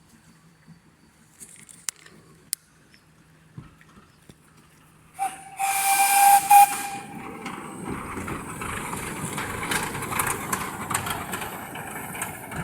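Steam locomotive whistle sounding one short blast of about a second and a half on a single steady note, starting about five seconds in, followed by a steady loud hiss of escaping steam.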